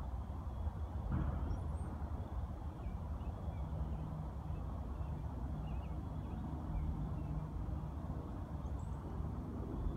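Outdoor pond-side ambience: a steady low rumble, with a low hum that comes and goes from a few seconds in and scattered faint bird chirps.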